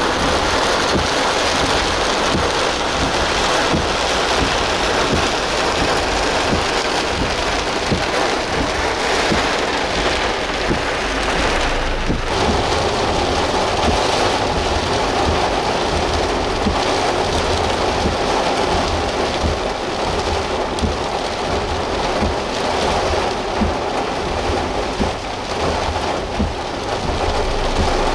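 Heavy rain and strong wind of a severe thunderstorm: a loud, steady hiss of rain over a low rumble that comes and goes.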